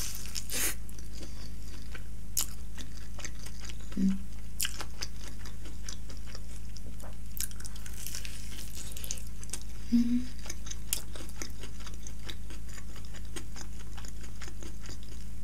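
Close-miked biting and chewing of a crispy fried chicken drumstick: scattered crunches and wet chewing clicks, with a short low "mm" from the eater about 4 and 10 seconds in. A steady low hum runs underneath.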